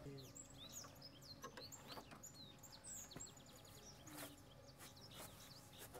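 Near silence with faint bird chirps and twitters, many short high notes, mostly in the first half, and a few faint ticks.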